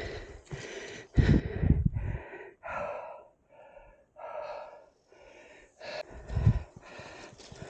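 A hiker breathing hard from the exertion of a steep, rough climb: a run of heavy gasping breaths in and out. Louder low thumps come in about a second in and again near the end.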